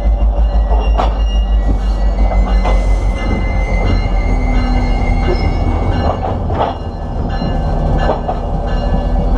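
Steel wheels of a freight car rolling slowly on the rail, heard from right beside the truck: a steady pulsing rumble with thin wheel-on-rail squealing tones. Three sharp metallic knocks come through, about a second in, near the three-second mark and past the six-second mark.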